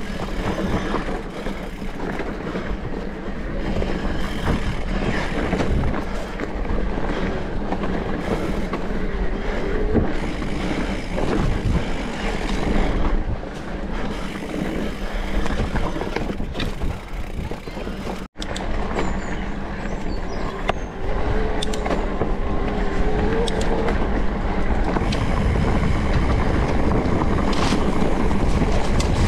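Electric mountain bike being ridden along a trail: continuous tyre rumble and rattling of the bike, picked up by a bike- or rider-mounted GoPro. A sudden momentary dropout comes about two-thirds of the way through.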